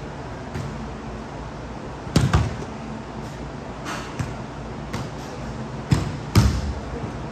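A ball being struck and hitting hard surfaces in an indoor game: an irregular string of sharp thuds and knocks, the loudest about two seconds in and again near the end, over a steady low hum.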